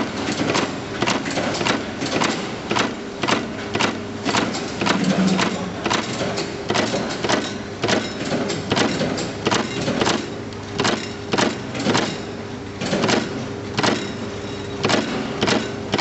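Electric wire-terminal crimping machine working in quick succession, its press clacking sharply about twice a second as brass terminals are crimped onto wire ends, over a steady hum.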